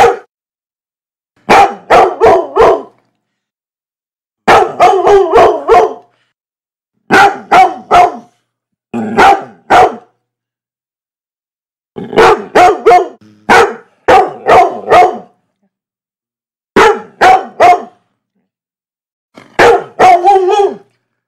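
A dog barking in quick runs of three to five loud barks, each run cut off by a second or two of dead silence before the next.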